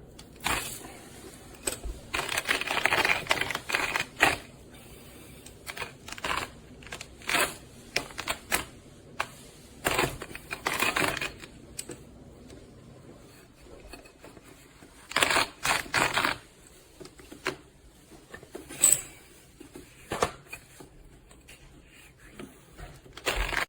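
Parts of a manual stainless-steel coffee grinder being handled: irregular clicks and knocks, with short scraping rattles about two seconds in, around ten seconds and around fifteen seconds.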